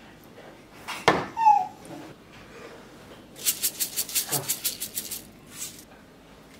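A ladle knocks against a ceramic dish about a second in while braised radish and minced pork sauce is served over rice. Then, about three and a half seconds in, black sesame seeds rattle in their container in a quick run of about a dozen shakes lasting under two seconds, as they are sprinkled over the dish.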